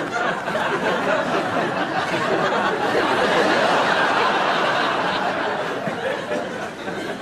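Studio audience laughing together, building to its loudest in the middle and dying away near the end.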